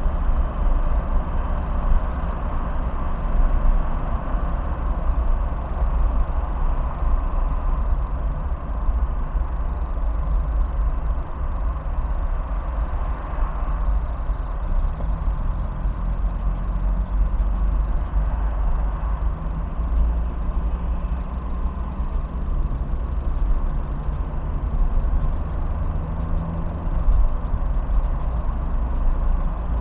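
Steady low rumble of a car's engine and tyres, heard from inside the cabin while driving, with an engine hum that stands out more in the second half.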